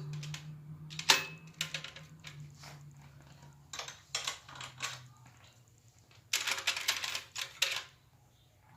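Metal roller chain clinking and rattling as it is handled and laid out: one sharp click about a second in, scattered clicks after it, then a dense run of clatter near the end.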